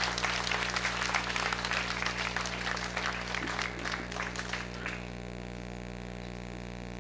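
Audience applauding; the clapping dies away about five seconds in, leaving a steady low electrical hum.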